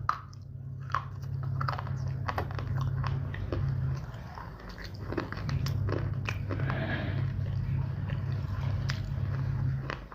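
Someone biting and chewing hard, dry pieces of edible clay close to the microphone: repeated sharp crunches and snaps. A steady low hum runs underneath and fades out for a moment about halfway through.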